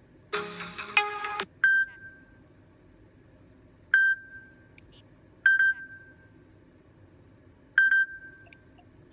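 Samsung Galaxy A52 5G ringtone playing from the phone's speaker: a short chiming burst about a third of a second in, then four single bright beeps spaced a couple of seconds apart, each ringing off quickly.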